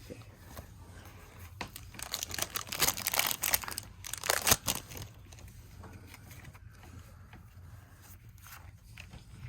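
Foil Pokémon booster pack wrapper being torn open and crinkled in the hands, a burst of crackling for about three seconds with one sharp loud rip near the middle, then faint rustling.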